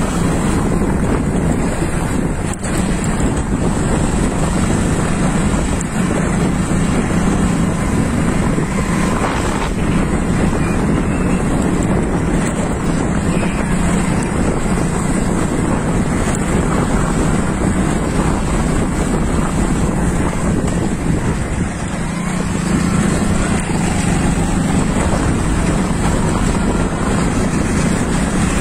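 Wind rushing over the microphone of a fast-moving camera, over a steady low drone and a thin, steady high whine.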